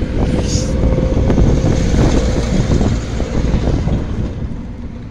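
Hitachi electric locomotive running along the tracks with a rumble and light clatter, a steady tone held over most of it, fading away over the last couple of seconds as it pulls off.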